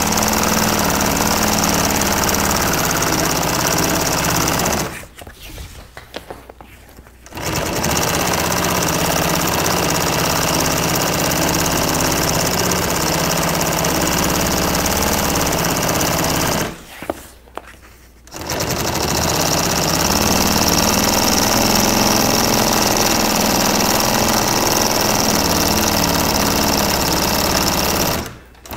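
Consew industrial sewing machine running steadily as it stitches a zipper tail onto boat canvas. It sews in three long runs, stopping briefly about five seconds in and again about seventeen seconds in.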